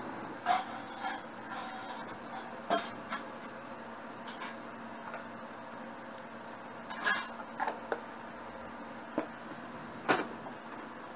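Kitchen utensils and containers being handled: a metal spoon clinking against a stainless steel bowl, and plastic containers knocked and set down, in a scattering of short sharp clicks and clinks. The loudest come about half a second, seven seconds and ten seconds in, over a faint steady hum.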